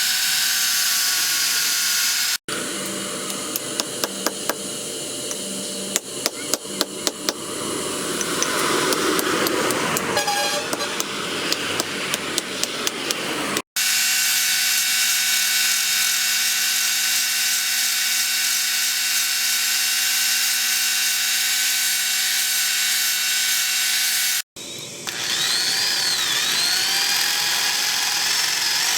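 Knife-making workshop tool sounds in three edited segments: a run of sharp metal strikes several a second, then a power tool's motor running at a steady pitch, then a tool whine whose pitch rises and dips as it works.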